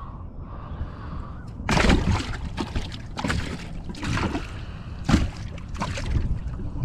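Water sloshing and splashing in several short, irregular bursts.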